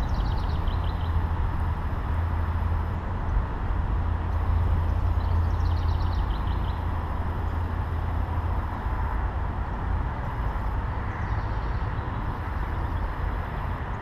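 Outdoor backyard ambience with a steady low rumble, and a small songbird singing a short, quickly descending trill of chirps three times: at the start, about five seconds in, and again, fainter, about eleven seconds in.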